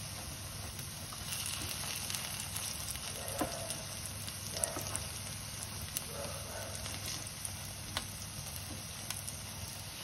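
Spinach and soya cutlets shallow-frying in hot oil in a pan: a steady sizzle with scattered small pops and crackles.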